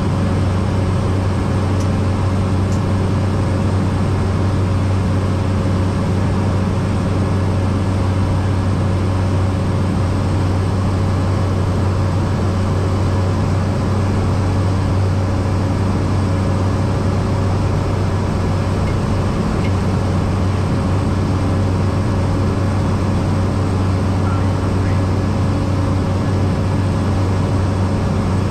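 Cessna 208B Caravan's PT6A turboprop engine and propeller running steadily in flight: an unchanging drone with a strong low hum.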